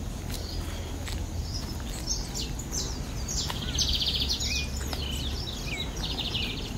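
Small songbirds singing, a canarinho (saffron finch) and a bigodinho (lined seedeater): quick buzzy trills and short sliding whistles, busiest in the middle, over a steady low rumble.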